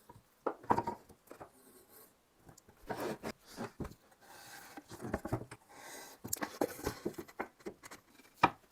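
Wooden cabinet panels being handled and fitted together by hand: scattered light knocks and taps with some scraping and rubbing of wood on wood.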